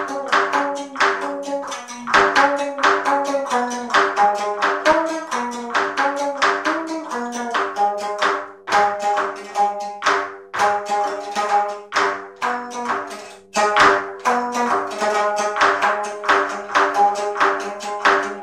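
Solo geomungo, the Korean six-string fretted zither, played in a quick run of plucked notes; each note is struck with the bamboo stick, so it starts with a sharp tap before ringing down.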